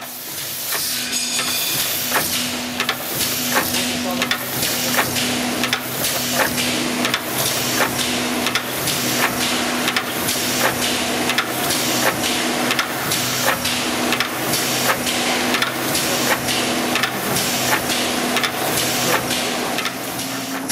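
Industrial multi-needle brine injector running: its needle heads stroke up and down in a regular knock about one and a half times a second, over a steady machine hum and the hiss of the brine.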